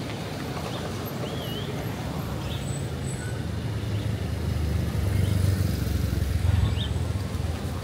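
Street ambience: a low rumble of passing motor traffic that swells about four seconds in and is loudest near the end, with a few short bird chirps over it.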